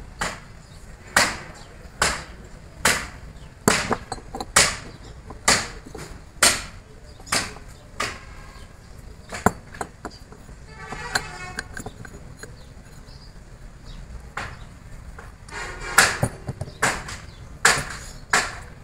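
Background music with a sharp percussive beat, a little faster than one beat a second. The beat drops out through the middle, where a short melodic passage plays, and comes back near the end.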